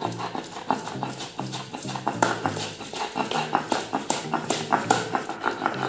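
Wet rice being ground on a sil-batta: the stone roller is rubbed and rocked back and forth over soaked rice and water on the stone slab, making quick, repeated scraping and knocking strokes.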